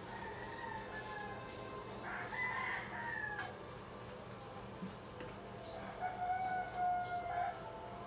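Roosters crowing, three drawn-out calls with the longest and loudest about six seconds in, over a faint steady hum.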